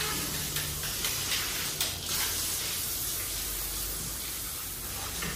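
Steady rushing hiss like running water, over a low steady machine hum, with a few faint knocks about two seconds in.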